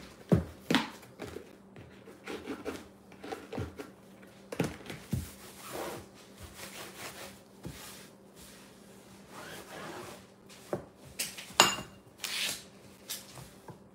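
Countertop being wiped down with a disinfecting wipe: rubbing and scuffing, with scattered light knocks and clicks as the wipes canister is handled and set down, the sharpest a little before the end.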